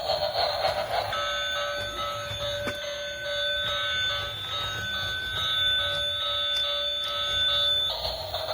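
A steady electronic tone made of several pitches held together, lasting about seven seconds. It cuts off suddenly. A noisy whirring comes before it and returns when it stops.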